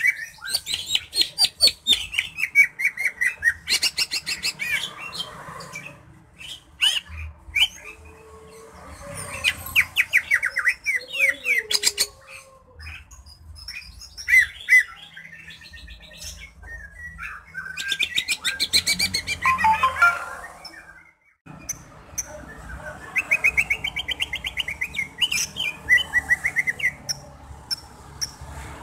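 Green leafbird (cucak ijo) singing: bouts of rapid, varied trills and chattering warbles with pauses of a few seconds between them.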